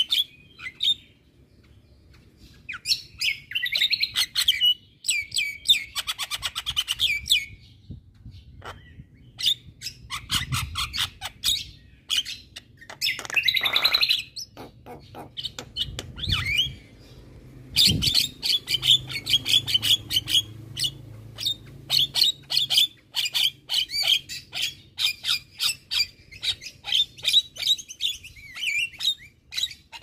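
Javan myna singing: bursts of sharp clicks, harsh chatter and short whistled notes, with brief pauses. About halfway through it breaks into a long, dense run of rapid clicking.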